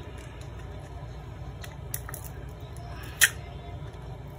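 Light clicks and one sharp, loud snap about three seconds in as a Vivo Y71's back cover is pried off along its edge with a steel pick, its clips snapping free, over a steady low hum.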